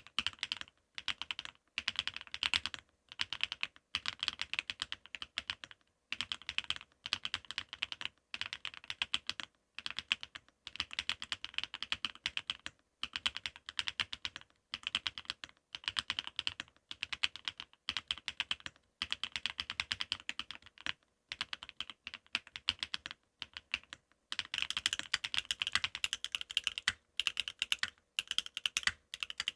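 Continuous typing on a NeoErgo ergonomic mechanical keyboard: runs of quick keystroke clacks with brief pauses between phrases. Near the end the typing switches to a Neo70 mechanical keyboard, and the keystrokes sound brighter and crisper.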